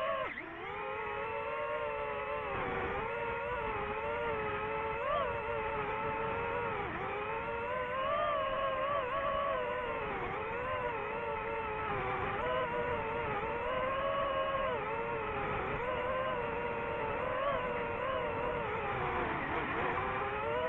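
DJI FPV drone's motors and propellers whining, the pitch rising and falling again and again with the throttle.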